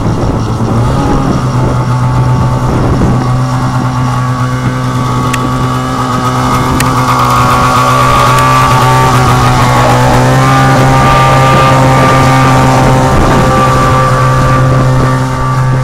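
Snowmobile engine running at low speed, a steady drone that grows louder as the sled comes close, with a slight rise in pitch partway through, then eases off near the end.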